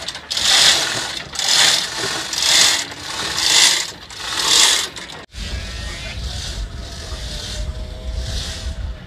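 Manual chain hoist (chain block) being hauled hand over hand under load, hauling a heavy wooden boat: the chain rattles and the hoist's ratchet clatters in loud bursts about once a second. About five seconds in, the sound cuts to a low wind rumble on the microphone, with fainter rhythmic rattling going on.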